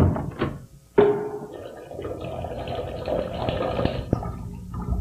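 A toilet flushing: water rushes in suddenly about a second in and runs on for several seconds before dying away near the end.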